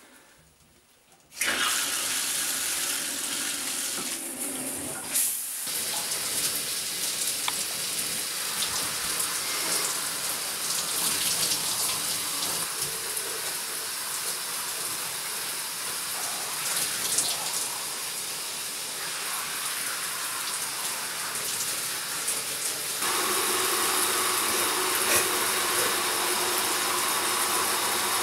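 A shower is turned on about a second in and then runs steadily, water spraying down into a bathtub. Near the end the spray grows louder and fuller.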